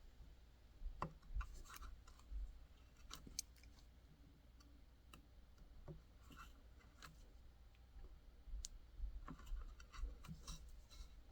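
Faint, irregular clicks and short scrapes of a carving knife cutting into white birch wood.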